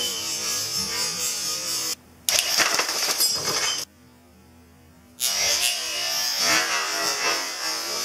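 Electric gearmotor (AndyMark PG71) with chain and sprocket drive running with a steady whirring buzz as it winds a spring-loaded catapult's choo choo release. About two seconds in, a louder, rougher stretch of noise follows a brief dropout, and the sound cuts out for about a second before the whirring resumes.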